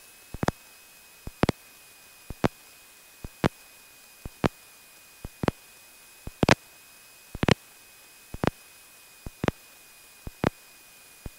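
Sharp clicks in pairs, about one pair a second and evenly spaced, over a faint steady hiss in a light aircraft's headset intercom audio.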